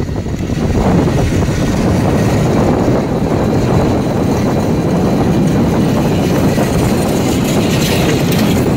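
Loud, steady rumble of wind buffeting the microphone on a moving e-bike, mixed with the noise of street traffic.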